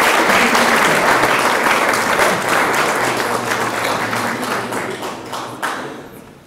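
Audience applauding: a dense, even clapping that holds strong and then dies away near the end.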